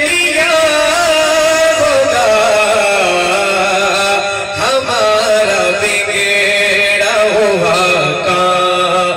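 A man singing a naat, an Urdu devotional song, solo into a microphone over a PA system. He holds long notes that waver and step down in pitch.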